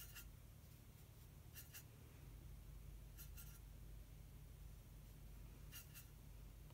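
Near silence with a low room hum and faint light clicks in pairs every second or two: a paintbrush tapping and working watercolour paint on a palette.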